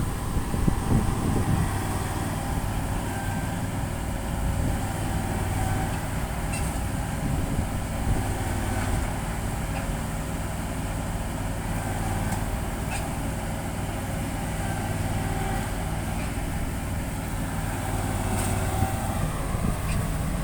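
Diesel engine of a rice combine harvester running steadily, with a few faint ticks on top, while the machine is stuck deep in the mud.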